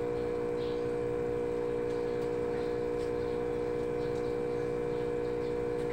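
A steady machine hum with a strong, even pitch and several lower tones under it, unchanging throughout, with a few faint light ticks from handling the banana bunch.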